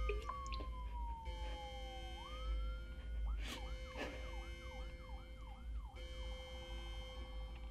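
Emergency vehicle siren sounding in a slow falling wail, then switching to a quick yelp of two to three cycles a second and then a faster warble. Two sharp knocks about half a second apart cut across it a little after three seconds in, over a steady low hum.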